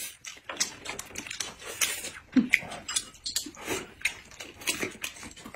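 Close-miked eating sounds: irregular chewing and mouth smacking on rice and preserved mustard greens, with small clicks of chopsticks against bowls.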